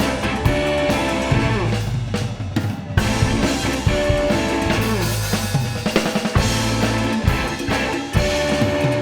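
Live rock band playing an instrumental passage, with a drum kit's bass drum and snare prominent under bass and melodic lines.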